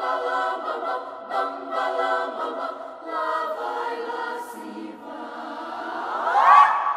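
Children's choir singing. Toward the end the voices glide upward into a loud high note.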